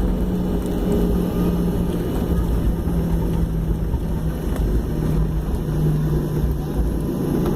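Cabin noise inside a Boeing 737-800 with its CFM56-7B turbofan engines running: a heavy low rumble under a steady hum that drops a step in pitch about three-quarters of the way through.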